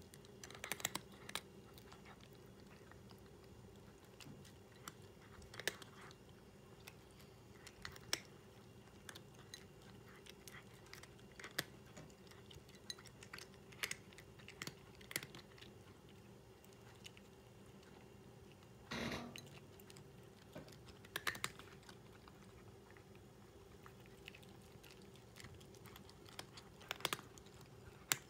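A cat crunching dry kibble: sharp, irregular crunches a second or two apart, with a longer run of chewing about two-thirds of the way through, over a faint steady hum.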